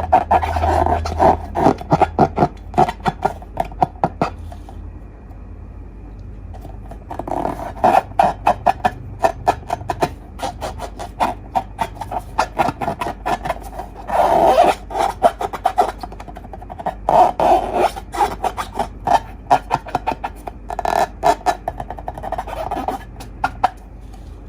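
Slime being mixed and squished: dense runs of sticky clicks and small pops, coming in bursts of a few seconds with quieter pauses between.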